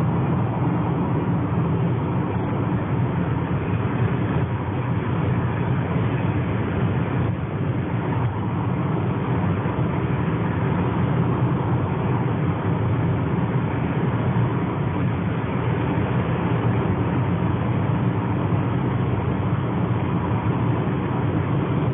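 Steady road noise inside a moving car's cabin: tyres, engine and wind making an even, low rumble that holds level throughout.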